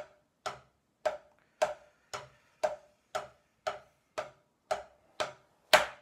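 Wooden drumsticks striking a drum practice pad in slow, even paradiddle strokes, about two hits a second, with one harder hit near the end.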